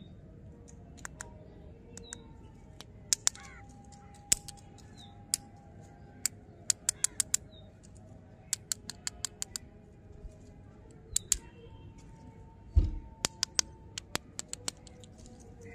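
Sharp clicks and taps from stick-mounted candy bars being handled and knocked together, coming in quick runs, with one louder thump late on. Birds chirp faintly in the background.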